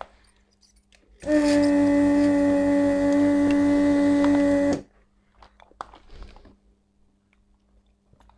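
Vacuum pump of a Weller WR 3M rework station running while the desoldering gun's button is held, sucking molten solder off a through-hole joint: a steady hum that starts about a second in, lasts about three and a half seconds and cuts off suddenly. A few small clicks and taps follow.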